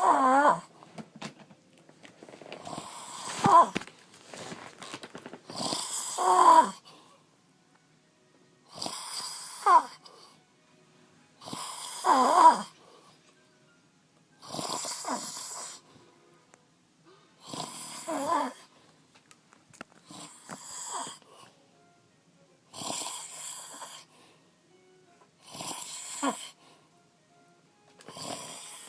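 A sleeping man snoring, about eleven snores evenly spaced every two to three seconds. Each snore carries a wavering, whistling pitch.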